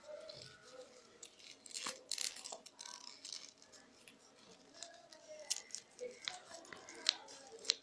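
Rolled newspaper tubes rustling and crinkling as they are woven by hand around a paper petal, with scattered light ticks and taps, a few sharper ones near the end.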